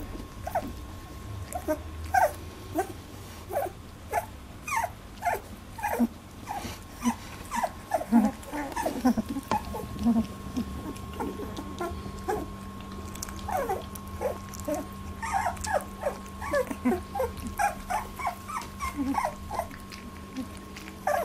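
A litter of 18-day-old labradoodle puppies squeaking, whimpering and growling as they squabble, many short squeaks a second, each dropping in pitch.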